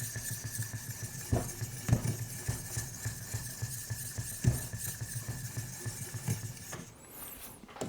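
Light clinks and a few soft knocks from handling a guided knife-sharpening rig and its stones, with no steady stone-on-steel strokes.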